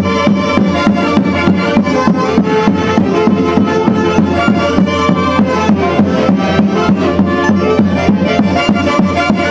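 Central Peruvian orquesta típica music: several melody instruments play together over a steady, even percussion beat.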